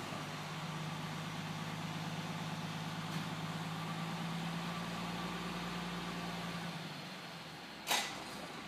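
Garbage truck engine idling as a steady low hum that fades about seven seconds in. A single sharp knock comes near the end.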